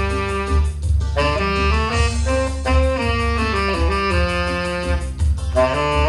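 Saxophone playing a joget dance melody in G minor, a phrase of stepping held notes with short breaths a little before one second in and again about five seconds in. Underneath runs a steady, pulsing low bass accompaniment.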